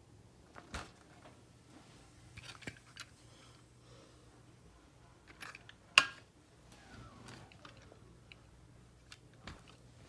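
Plastic fire alarm horn and strobe units being handled, with scattered small clicks and knocks. The sharpest, loudest knock comes about six seconds in.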